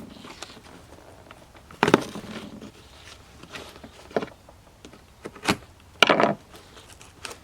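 Cardboard box being opened with a pocket knife: a few scattered scrapes and rustles of knife and cardboard, the busiest stretch near the end.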